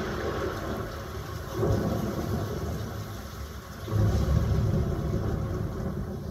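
Storm sound effects from a cinema trailer playing through home-theater speakers. Deep thunder rumbles swell about one and a half seconds in and again, louder, about four seconds in, over a steady rushing hiss.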